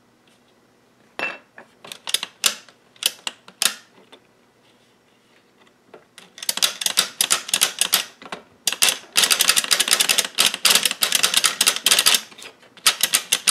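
3D-printed circular sock knitting machine being hand-cranked through a round of knitting: the latch needles clatter up and down through the cams as a run of sharp clicks. A few separate clicks come first, then fast, steady clicking from about six seconds in, with a short break near the end.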